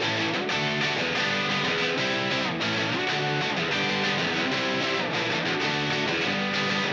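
Background music led by a distorted electric guitar with strummed chords.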